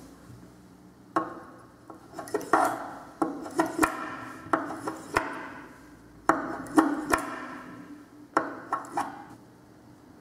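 Bar magnet tapped down and stroked along a straightened steel paperclip wire lying on a tabletop to magnetise it: about a dozen taps, each with a short scrape. The strokes stop near the end.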